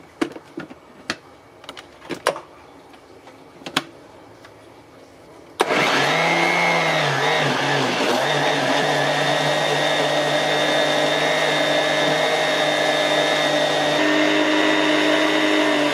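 A few clicks and knocks, then about five and a half seconds in a Philips ProBlend 5 countertop blender starts abruptly and runs loud and steady, blending cream cheese, eggs and cream into a smooth batter. Its motor pitch wavers for the first second or so as the thick mixture catches, then holds steady until it is switched off near the end.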